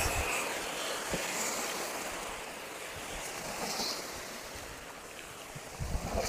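Hot chili oil in a large wok sizzling as a long paddle stirs it, the sizzle fading steadily: the hiss of baijiu poured into the oil dying away with the heat off. A few low bumps near the end.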